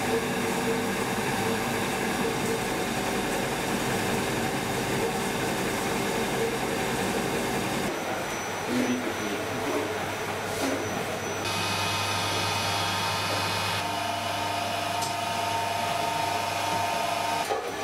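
Stone flour mill running steadily while flour pours out. About eight seconds in it gives way to a pasta-making machine's motor, which settles into a steady whine.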